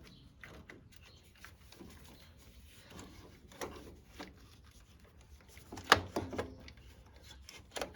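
Scattered knocks and scraping of a tractor starter motor being worked loose from its mounting and pulled out, with a sharp clunk about six seconds in.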